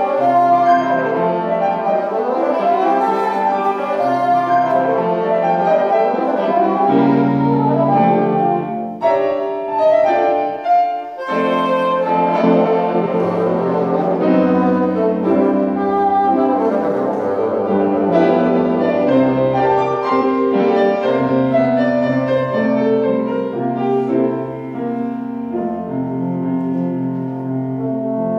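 Bassoon and grand piano playing a classical piece together live, the bassoon's sustained melodic line over piano accompaniment.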